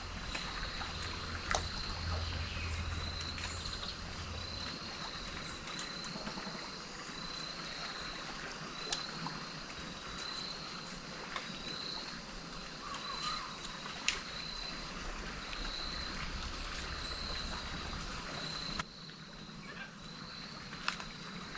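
Riverside ambience: a steady rush of flowing water with a short, high chirp repeating about once a second and a few sharp clicks. The water noise drops off suddenly near the end.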